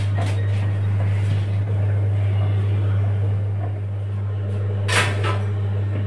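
Samsung microwave oven running while baking, a steady low electrical hum. A brief sharp click or rustle about five seconds in.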